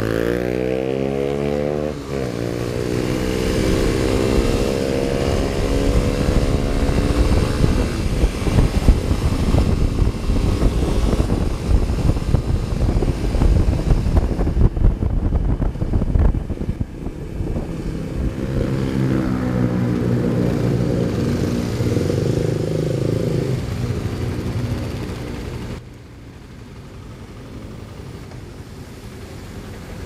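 Motorcycle engines in city traffic. At the start one passes close with its note falling in pitch. Then comes the heavy low rumble of riding along, the engine note climbs again about two-thirds of the way through, and it drops to a quieter running sound near the end.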